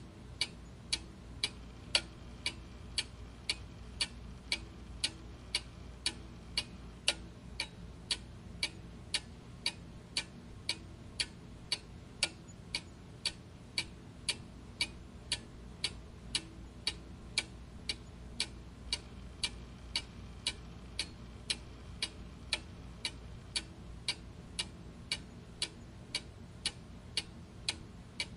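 Clock ticking steadily, about two ticks a second, over a faint low background hum.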